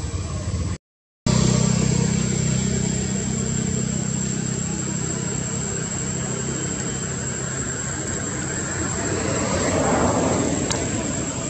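A steady engine drone with a constant high-pitched tone above it, cutting out completely for a moment about a second in and swelling briefly around ten seconds in.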